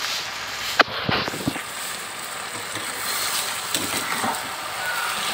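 Marinated chicken sizzling in a nonstick kadai, with a metal spatula knocking and scraping against the pan as the pieces are stirred. A sharp knock about a second in is the loudest, followed by a few quicker taps and lighter scrapes later.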